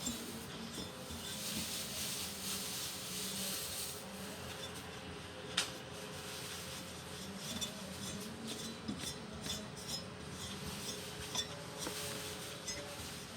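Rubbing and scraping from hands working on a twin-tub washing machine's parts, then scattered light metallic clicks and clinks, over a faint steady hum.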